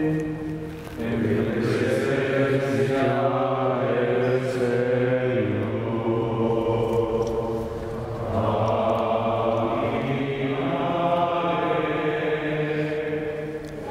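Men's voices singing a slow closing hymn at the end of Mass, with long held notes that change pitch every few seconds.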